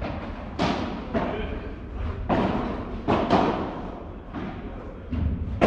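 Padel rally: the ball struck by rackets and bouncing, a string of about seven or eight sharp hits at irregular intervals, each echoing briefly.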